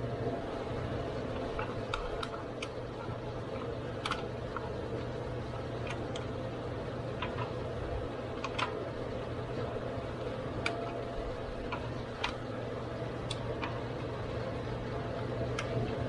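Scattered light clicks and knocks, about a dozen at irregular intervals, as a plastic-shrouded radiator cooling fan assembly is worked into place in a car's engine bay, over a steady background hum.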